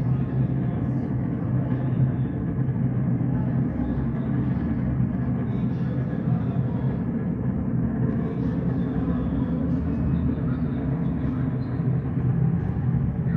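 A steady low rumble with a constant hum underneath, unchanging throughout.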